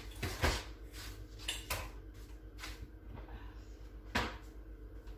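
Kitchen cupboard doors being opened and shut out of view: a few knocks, about half a second, nearly two seconds and about four seconds in.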